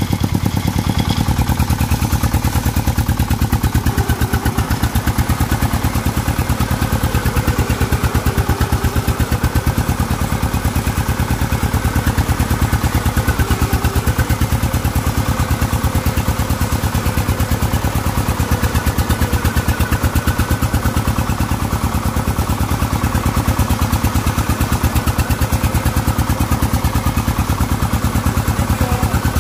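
The single-cylinder diesel engine of a công nông farm tractor-truck running steadily while the vehicle drives, a fast, even beat of firing strokes that holds the same pace throughout.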